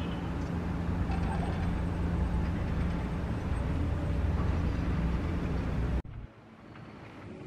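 MAN city bus's diesel engine running with a steady low rumble and hum as the bus moves slowly past. It cuts off suddenly about six seconds in, leaving quieter background.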